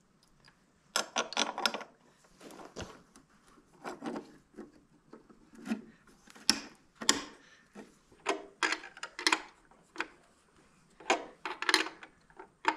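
A washing-machine motor and wooden frame being handled: short bursts of wood and metal scraping and rubbing as the motor is shifted about on the frame's plank, with a sharp knock about three seconds in.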